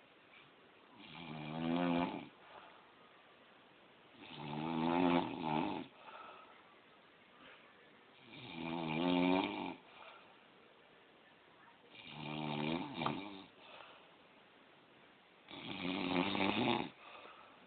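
A man snoring in his sleep, likened to a little pig: five rasping snores, each about a second and a half long, coming about every four seconds with quiet gaps between.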